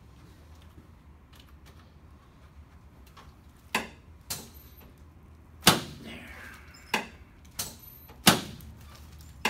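A run of about seven sharp knocks and clacks, starting a little before halfway in and coming under a second apart, from chiropractic adjustments of a patient lying face down on the treatment table.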